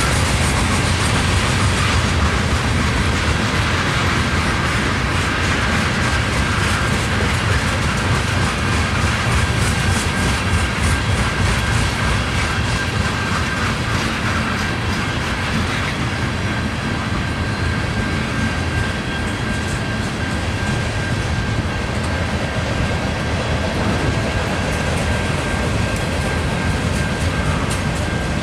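Freight train cars, tank cars and then autoracks, rolling steadily past, their wheels clicking over rail joints with a continuous rumble. A thin steady high tone runs through the second half.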